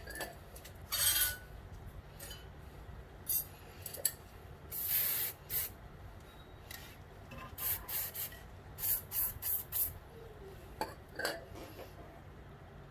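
Aerosol can of CRC 5-56 penetrating oil sprayed in several short hissing bursts, the longest about five seconds in and a quick run of them near the end, onto brake caliper bracket bolts expected to be tight.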